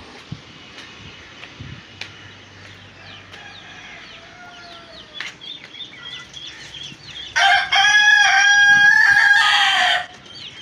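A rooster crowing once: a long, loud call of about two and a half seconds, beginning about seven seconds in. Before it, chickens clucking faintly.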